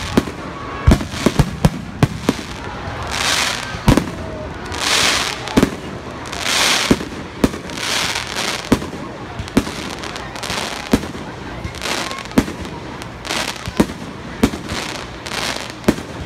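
Aerial firework shells bursting in a rapid series of sharp booms, about one a second, with several longer hissing swells between the bangs.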